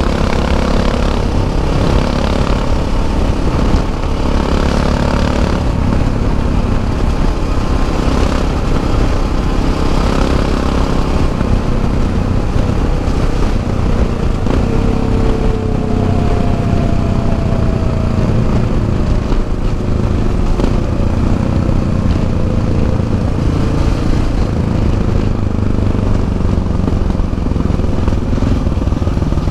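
Single-cylinder engine of a Yamaha XT 660 Z Ténéré motorcycle running steadily at cruising speed, mixed with wind noise from riding.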